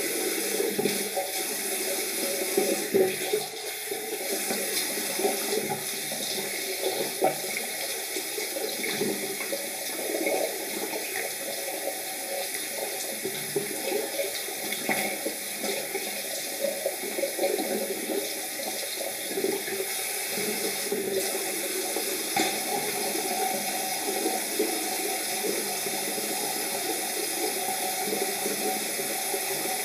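Water running from a tap into a bathroom sink, with uneven splashing as wet hands wash a face.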